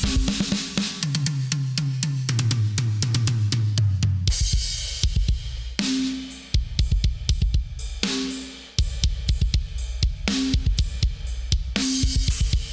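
Sampled acoustic drum kit from the FxPansion BFD3 virtual drum software, playing back through console, compressor and tape emulation plugins. It opens with a tom fill that steps down in pitch from the high toms to the floor tom. At about four seconds a crash cymbal comes in, then a steady beat of kick, ringing snare and cymbals.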